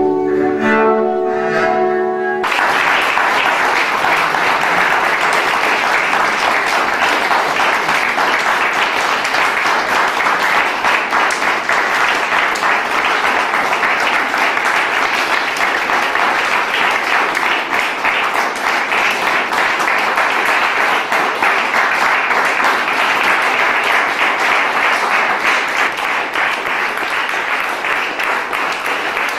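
The last held notes of a bowed double bass and saxophone end about two seconds in, and an audience then applauds steadily.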